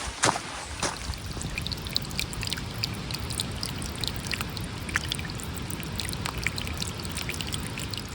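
Water trickling and pouring, with many small irregular splashes over a steady hiss, after a couple of footsteps in the first second.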